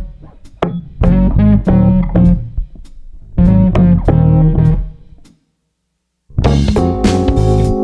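Background music of plucked guitar over a bass line in short phrases. It cuts out completely for about a second, then starts again with held notes.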